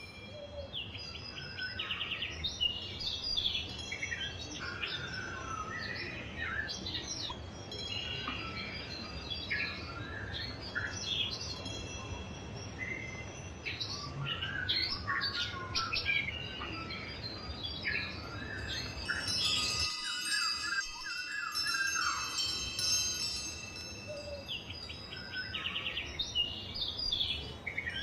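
Several birds chirping and singing at once in short, overlapping calls. About two-thirds of the way in, high chimes join, ringing in long, overlapping tones over the birdsong.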